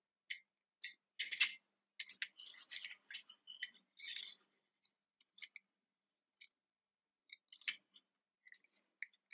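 Faint, scattered clicks and light scrapes of a small plastic toy dump truck being handled, with a short cluster about a second in and more between two and four seconds.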